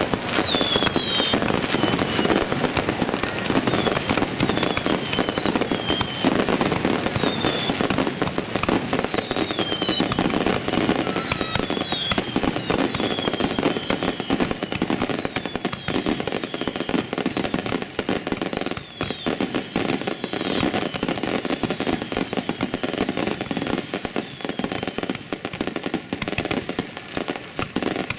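Fireworks finale barrage at close range: continuous crackling and popping from many shells and ground effects going off at once, with a string of short falling whistles over it. So close to the launch site that the sound wavers.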